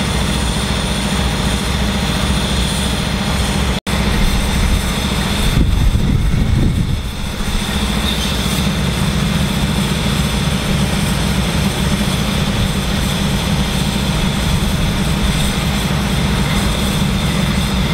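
Heavy diesel engine of a tracked excavator running steadily, with a louder swell under load about six seconds in. The sound drops out for an instant about four seconds in.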